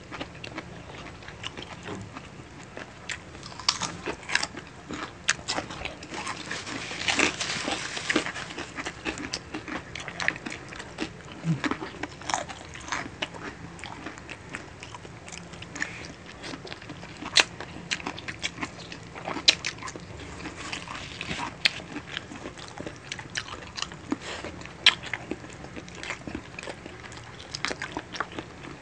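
Close-miked eating of spicy adobo chicken feet and crispy pork chicharon: chewing and biting with many sharp crunches scattered throughout, and a longer, louder stretch of crunching about seven seconds in.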